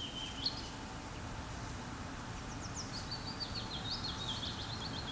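Birds singing: short phrases of high chirps and quick downward-sweeping trills, one near the start and more from about halfway on, over a steady low background rumble.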